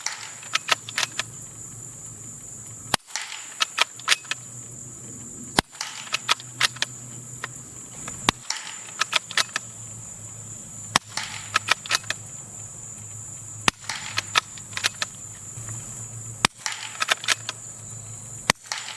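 Suppressed Ruger Precision Rimfire bolt-action rifle firing subsonic 40-grain .22 LR rounds at 710 feet per second: about eight super quiet shots, spaced two and a half to three seconds apart. After each shot comes a quick series of clicks from the bolt being worked.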